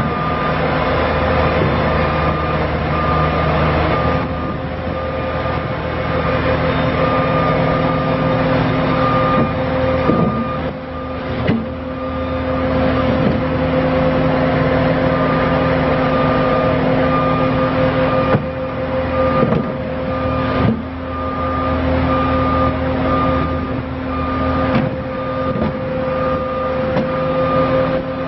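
Bobcat T650 compact track loader's diesel engine running steadily while the machine is operated, with a backup alarm beeping in an even repeating rhythm. A few clunks come around the middle.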